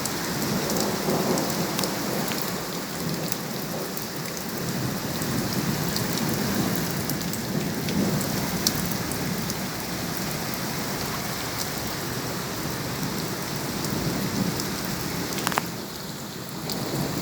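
Rain falling steadily, with many sharp ticks of drops striking a hard surface.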